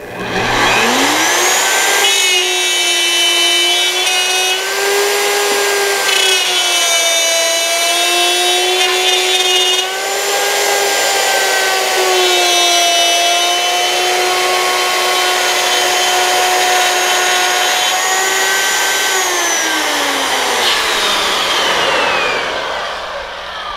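Handheld router with a quarter-inch bit spinning up, then cutting a dado in a board in two passes along a guide track, its whine wavering in pitch as the cut loads it. Near the end it is switched off and winds down.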